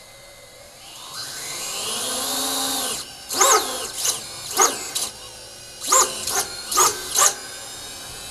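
The four Racerstar BR2207S 2500KV brushless motors of a 4S 5-inch quadcopter running after arming. Their whine rises about a second in, holds, and cuts off about three seconds in, followed by about seven short throttle blips, each a quick rising-and-falling whine.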